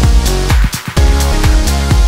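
Electronic dance music with a steady kick-drum beat.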